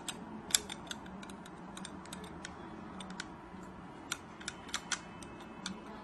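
Irregular small clicks and taps of a mobile phone being handled and pushed into the side slots of its belt-buckle holder.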